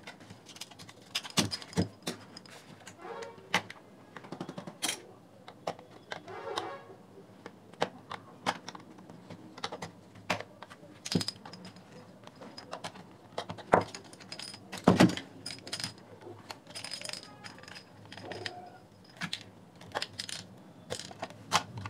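Irregular plastic clicks, knocks and rattles as a JBL Flip 3 speaker's casing is pried apart by hand, its fabric grille sleeve and plastic housing being worked off the driver enclosure. A few louder knocks come about two-thirds of the way through.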